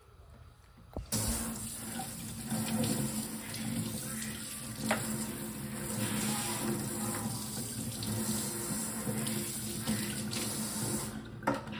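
Water tap running hard into a sink. The flow is turned on suddenly about a second in and shut off near the end.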